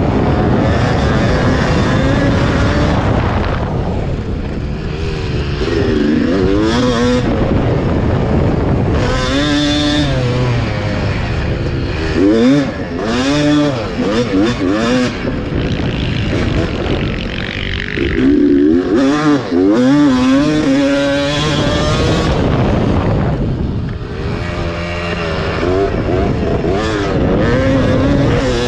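1991 Yamaha WR250's two-stroke single-cylinder engine, heard from on board, revving hard and dropping back over and over as the throttle is worked through the race, its pitch rising and falling with quick wavering runs.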